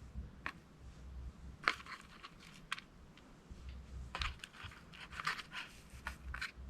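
Small parts being handled by hand: scattered clicks, light scrapes and crinkling as the carburetor's gaskets and pieces are sorted and fitted back together, busiest in the second half.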